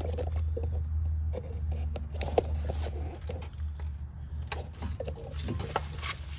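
Scattered light metallic clicks and taps from handling a brake rotor and caliper bracket, over a steady low hum.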